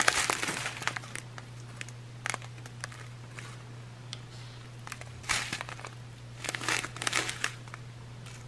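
Small clear plastic bags of diamond painting drills crinkling as they are handled, in short bursts near the start, about five seconds in and again about seven seconds in. A steady low hum runs underneath.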